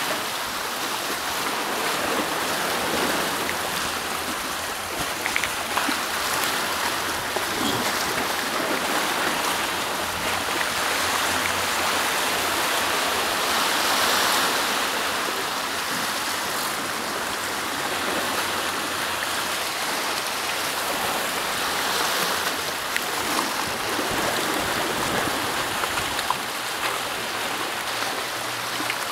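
Sea surf washing and splashing over a rocky shoreline, a steady rushing of water that swells and ebbs.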